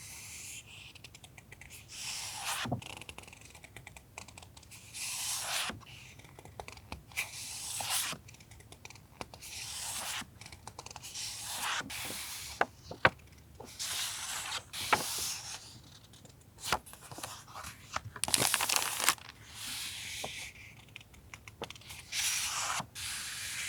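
Sheets of paper being handled: rustling and sliding in irregular bursts a second or so long, with small sharp taps and clicks between them.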